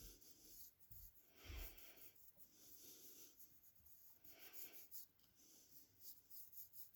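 A slow, uneven series of faint rubbing strokes, like something being rubbed or scraped by hand on a surface.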